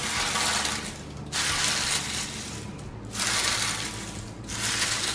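Oven-dried spinach leaves, dried until they snap, crackling and crunching as hands crumble them on parchment paper on a baking tray. The crumbling comes in repeated handfuls of about a second each.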